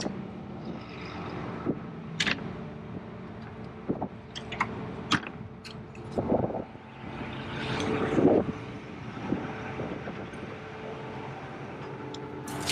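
Large farm machine's engine running steadily, a combine or tractor at harvest. Several sharp clicks and knocks come over it, with two louder rushing swells in the middle.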